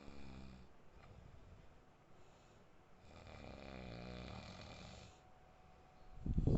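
A man snoring in his sleep: a short snore at the start and a longer snore about three seconds in whose pitch wavers, with quiet breathing between. Near the end a much louder, rough low noise begins.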